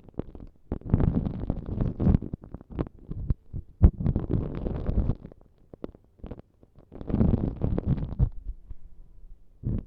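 Close-microphone ASMR prop sounds: bursts of rubbing and scratching right on the microphone, with short pauses and a few sharp clicks.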